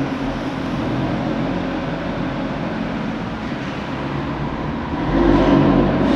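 Audi RS3's five-cylinder petrol engine running steadily, getting louder about five seconds in.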